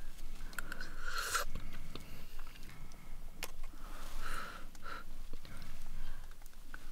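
Close-up eating sounds: soup slurped from a spoon in short noisy sips, the loudest about a second in and about four seconds in, with a few light clicks of a metal spoon against a stainless steel cup.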